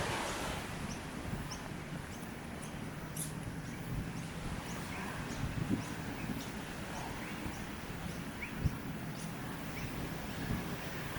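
Small birds chirping, short high chirps repeating about twice a second with a few lower calls among them, over a steady outdoor background hiss. A few soft low thumps, the loudest a little past the middle.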